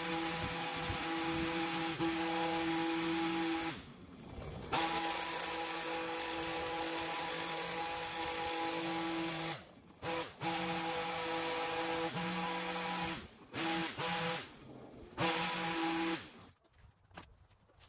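Powered hedge trimmer running at a steady pitch while cutting a hedge. It is let off briefly several times and stops about 16 seconds in.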